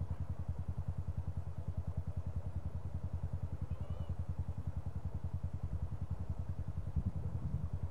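Dirt bike engine idling: a steady, rapid low pulsing.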